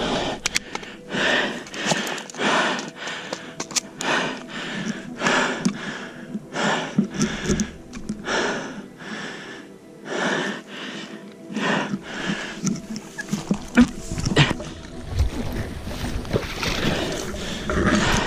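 A person moving on foot through tall grass, breathing hard: a rasping breath or swish about once a second.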